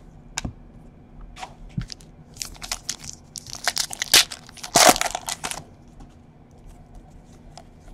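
A foil trading-card pack wrapper crinkling and tearing as it is ripped open, a burst of crackling from about two and a half to five and a half seconds in, with a few light clicks of card stock being handled before it.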